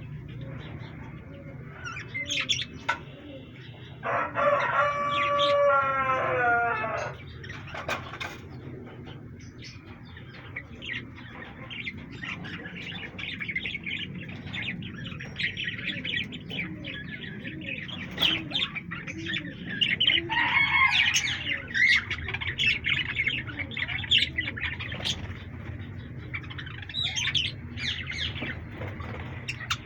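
Pet birds chirping and calling over and over, with one long drawn-out call that falls in pitch about four seconds in.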